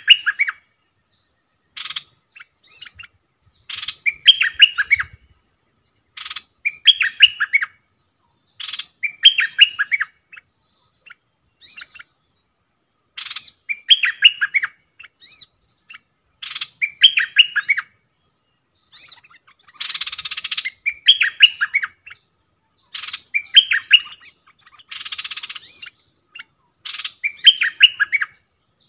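Stripe-throated bulbuls singing short, quick, bubbly phrases of rising and falling notes, repeated every two to three seconds. Two longer rasping, harsh bursts come about two-thirds of the way through.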